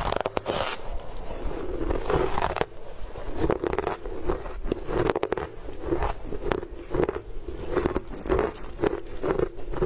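Crunching and chewing of crumbly coloured sweet ice, with sharp crackles as it is bitten and broken apart, the chewing crunches coming about twice a second.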